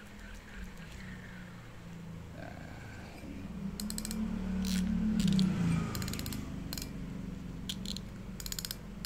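Penn Spinfisher VI 4500 spinning reel being worked by hand: a low whir from the turning rotor and gears, growing louder midway, with short bursts of rapid clicking.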